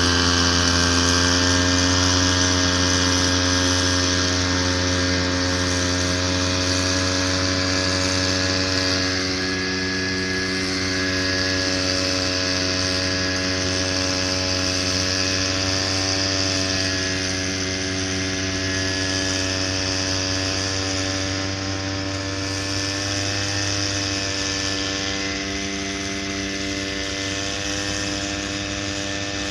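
Small engine of a Victa motorized backpack sprayer running steadily at a constant speed while herbicide is sprayed, with a hiss above the engine note. It grows slowly fainter as the sprayer moves away.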